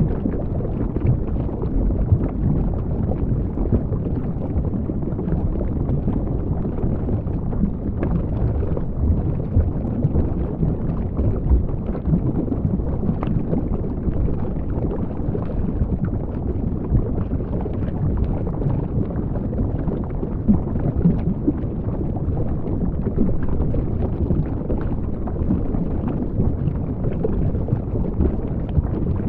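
Underwater sound picked up by the camera below the surface: a steady, muffled low rumble of moving water, with faint scattered clicks and crackles.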